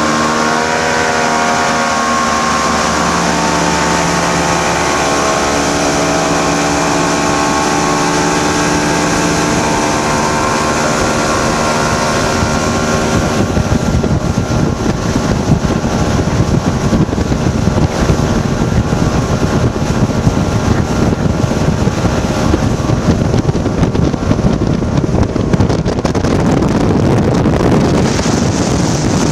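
Mercury outboard motor driving a boat at speed: a steady engine tone with slight shifts in pitch over rushing water and wind. About halfway through, fluttering wind buffeting on the microphone takes over and the engine tone sinks into the rush.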